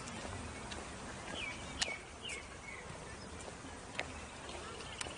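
Birds chirping a few short times, a second or two in, over steady outdoor background noise. A few sharp clicks and a faint rapid trill come near the end.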